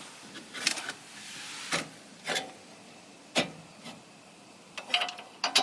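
Irregular sharp metal knocks and clanks, about half a dozen, as tools and suspension parts are worked while fitting a car's lower control arm.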